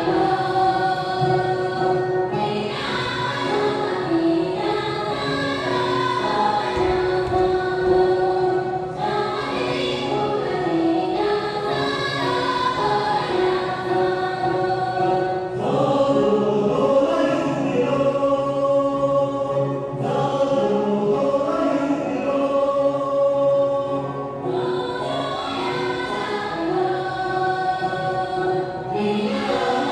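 Men and women singing a Tibetan folk song together in chorus, accompanied by a plucked dranyen (Tibetan lute), in phrases of several seconds with short breaks between them.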